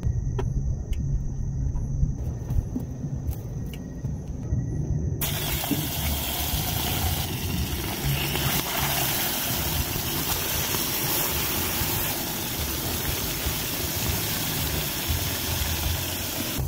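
A few faint knife clicks on a plastic cutting board, then, from about five seconds in, a steady sizzle of fish frying in hot oil in a small pan on a gas-canister camping stove. A low rumble runs underneath throughout.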